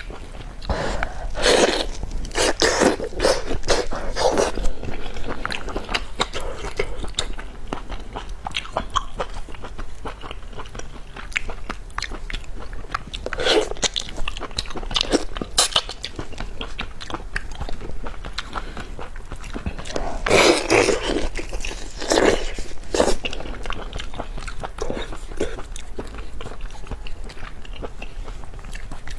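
Close-miked mouth sounds of a person eating sea fish: chewing, biting and wet smacking with small clicks, in louder flurries a second or two in, around the middle and about two-thirds of the way through.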